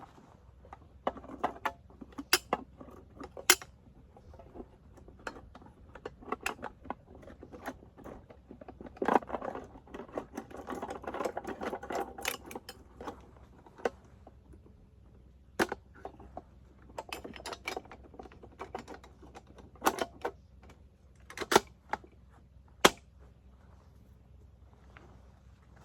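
Metal parts of a PKM machine gun being handled: scattered sharp clicks and clacks, with a busier rattling stretch about nine to thirteen seconds in and a few loud knocks near the end.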